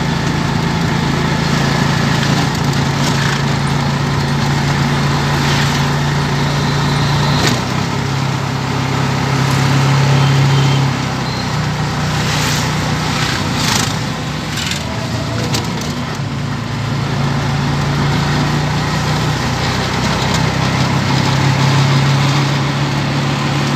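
Auto-rickshaw's small engine running as the three-wheeler drives through traffic, heard from inside its open cab. The engine note rises and falls as it speeds up and slows, over road noise and a few sharp rattles.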